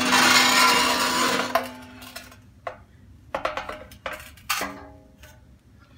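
Steel exhaust resonator knocked and scraped against concrete as it is handled and set down. The first loud knock leaves the metal shell ringing with a steady tone for about two seconds, then several lighter clunks follow.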